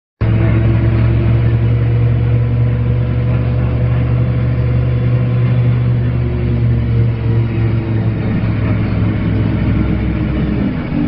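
Dennis Lance bus running under way with a steady, low groaning engine and driveline sound; the pitch eases slightly lower about halfway through.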